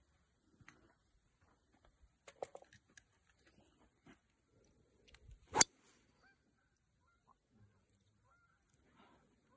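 A golf driver striking a ball off the tee: one sharp crack a little past halfway, far louder than anything else. A few fainter clicks come a couple of seconds in.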